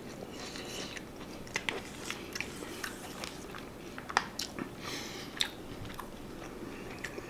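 A metal fork clicking and scraping in a bowl of rice as a forkful is gathered, with a man chewing a mouthful of food. A dozen or so sharp separate clicks, the loudest about four seconds in.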